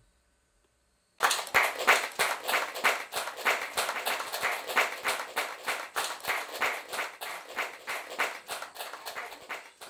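A small audience clapping, starting suddenly about a second in and slowly dying down.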